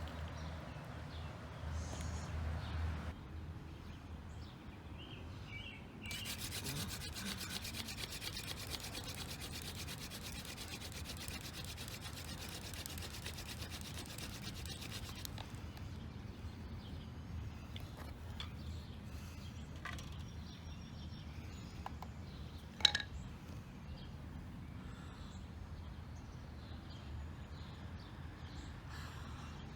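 Hand-drill spindle of tall ironweed spun hard against a white pine fireboard, its friction giving a fast, dense rasping for about ten seconds, starting about six seconds in. A single sharp knock comes near the end.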